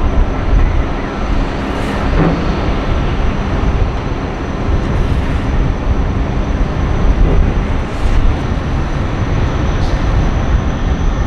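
Jet engines of a UPS Airbus A300 freighter taxiing, giving a steady low rumble with a faint high turbine whine.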